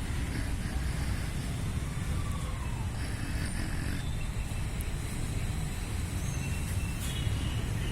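Steady low rumble of outdoor background noise, with a faint tone that rises and falls about two seconds in and a few faint high chirps.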